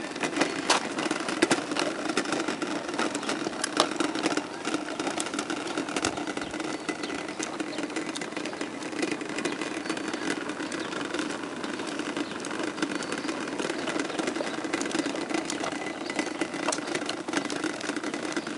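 Hard plastic tricycle wheels rolling over an asphalt path, a steady grinding rumble with scattered rattles and clicks from the tricycle.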